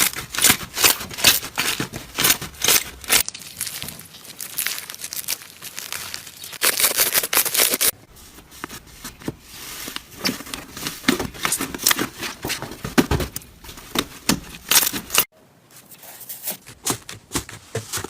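Slime being stretched, squeezed and folded by hand, giving dense, irregular sticky crackling and popping that comes in busy spells.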